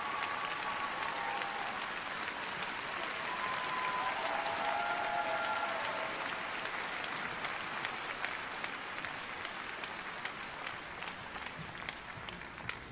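Arena audience applauding a figure skater after her program, the applause slowly fading toward the end.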